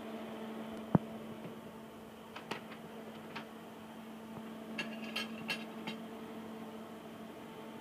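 Steady electrical hum from an argon ion laser power supply with its cooling fans running. A single sharp click about a second in, and a few light ticks and clicks about two and five seconds in.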